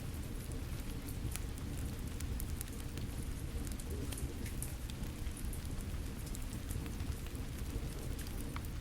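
Steady rain falling with a fire crackling, its sharp pops scattered a few times a second over the even hiss of the rain.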